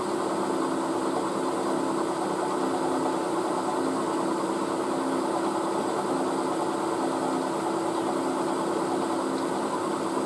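Milling machine spindle running with a steady hum as a 3.8 mm twist drill is fed in gentle pecks into a small metal part, starting the hole without a pilot.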